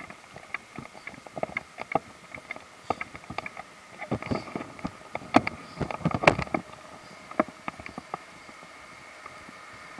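Footsteps on a paved road with the knocks and clicks of a carried camera: irregular taps several times a second, busiest and loudest around the middle, over a faint steady hum.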